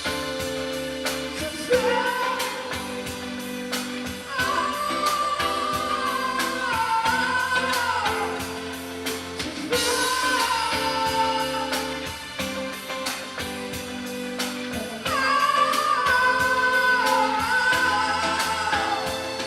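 A song: a voice singing a melody over instruments with a steady beat.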